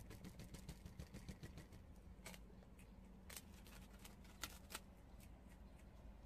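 Prairie dogs nibbling puffed rice cakes: faint, quick crisp crunches and crackles, with a few sharper crackles in the middle.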